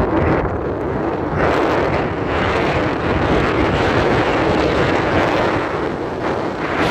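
Wind rushing over the microphone from an open window of a moving car, with the car's road noise underneath; a loud, steady rush.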